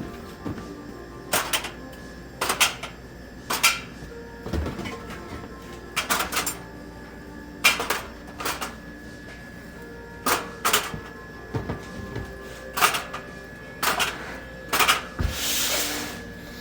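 Drink bottles and cans being loaded into a vending machine's spiral trays: irregular sharp plastic clicks and knocks, about one a second. A longer sliding rush comes near the end.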